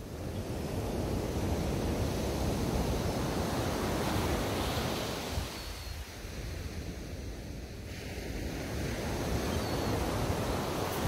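Small sea waves breaking and washing up a shingle beach, with some wind rumble on the microphone. The surge swells over the first few seconds, eases about halfway, and builds again near the end as the next wave comes in.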